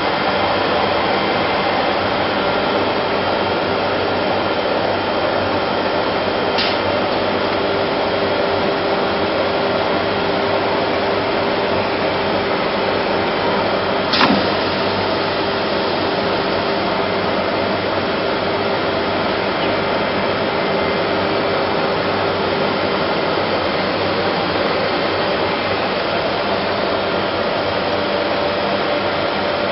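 ATC CNC router running with a steady whirring noise and a held hum that fades out near the end. Two sharp clicks come through, a faint one about a quarter of the way in and a louder one about halfway.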